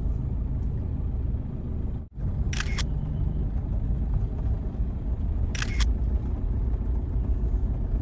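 Low, steady rumble of a moving vehicle, with wind on the microphone. A sharp rattling click comes three times, and the sound cuts out briefly about two seconds in.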